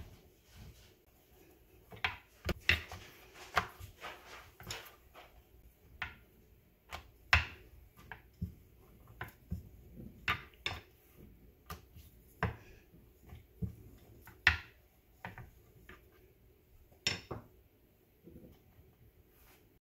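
Rolling pin rolling out chapati dough on a countertop: irregular knocks and clicks as the pin is pressed, rolled and set down on the counter, with a few sharper knocks spread through.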